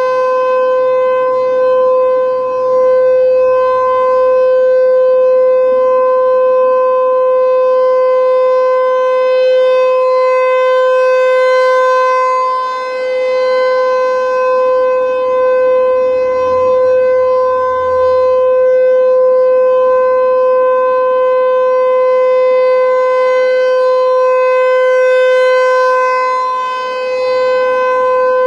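American Signal T-128 rotating outdoor warning siren sounding its steady Alert tone in a scheduled test: one held tone that never changes pitch. Its loudness dips briefly about every 14 seconds as the turning head points away.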